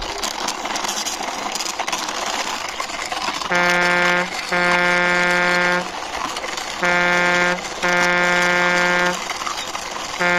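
Truck horn honking in pairs of steady blasts, a short one then a longer one, the pair repeated three times starting about three and a half seconds in, over a steady hiss.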